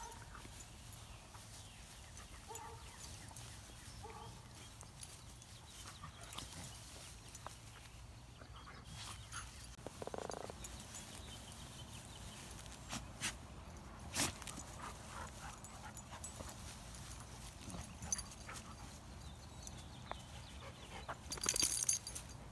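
Goldendoodles rolling and wriggling on their backs in grass: faint rustling and scattered small clicks, a few short dog noises, and a louder scratchy burst near the end.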